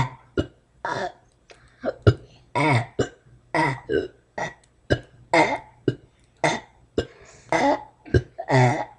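A child burping over and over on purpose: a quick string of short burps, about one every half second to second, with short sharp clicks between them.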